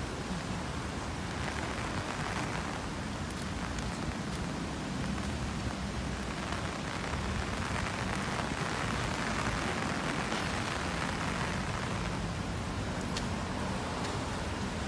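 Steady street noise: an even hiss over a low rumble, swelling a few times as traffic passes.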